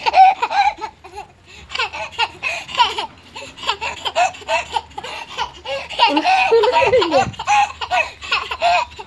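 A young child laughing in repeated high-pitched bursts, with a drawn-out falling vocal sound about seven seconds in.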